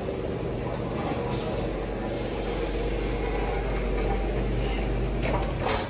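Forklift running steadily as it backs away, drawing its forks out from under the water jet tank; the low running sound drops away near the end.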